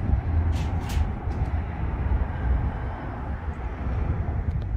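Detroit Diesel 8V-71 two-stroke diesel of a 1964 GM PD-4106 bus idling steadily, warmed up to operating temperature, with a low rumble. A couple of sharp clicks come about half a second to a second in.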